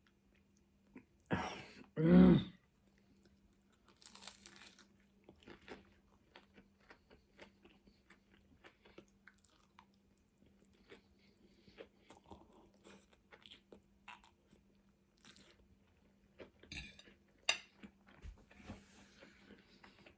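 Close-miked chewing and crunching of a meal of spicy noodles and chicken nuggets with crispy toppings, in many small irregular crunches and mouth clicks. Two louder noises come about a second and two seconds in, and a sharp click near the end.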